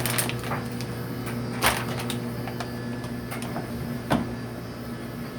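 Clothes dryer running with a steady hum, and three sharp knocks from the tumbling load; a sound the owner says doesn't sound very happy.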